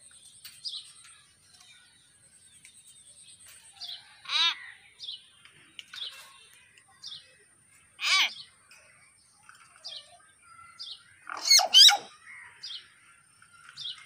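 Hill mynas calling: short high chirps about once a second, broken by three louder calls with a bending, falling pitch, the first about four seconds in, the next about eight seconds in, and the loudest a quick pair near the end.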